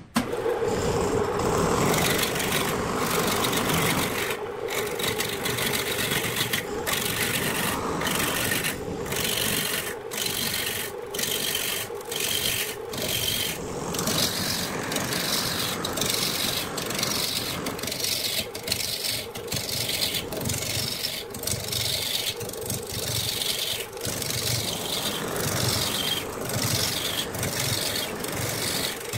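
Wood lathe spinning a rough, bark-covered log while a hand-held turning gouge cuts into it, roughing it down to a cylinder. A continuous scraping cut with many brief dips and returns.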